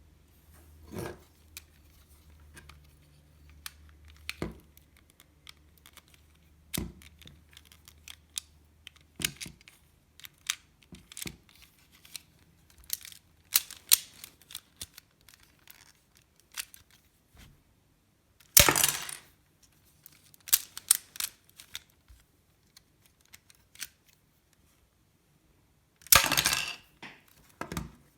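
Plastic clicks and rattles of a LEGO Technic toy pistol being handled and worked. Scattered sharp clicks, with two louder clattering bursts, one about two-thirds of the way through and one near the end.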